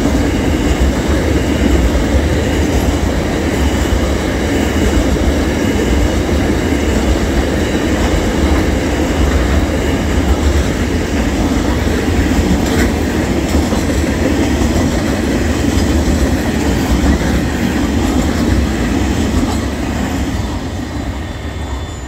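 Freight train's hopper wagons rolling past, steel wheels running over the rails in a steady heavy rumble with a thin, faint wheel squeal. The sound falls away near the end as the last wagon goes by.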